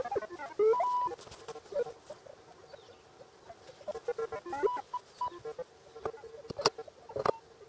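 Metal detector giving short warbling target tones of changing pitch as it is swept over the ground, with two sharp clicks near the end.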